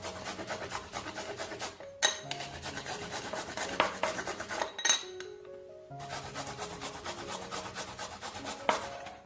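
Fast, even scraping strokes, about eight a second, like something being grated or rasped, over background music. The strokes stop briefly about two seconds in and again around five seconds in, with a few sharper clicks among them.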